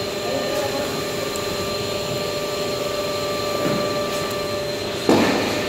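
Kolortec beam 5R moving-head light running, its cooling fans giving a steady whir with a constant whine. A short louder noise breaks in about five seconds in and fades away.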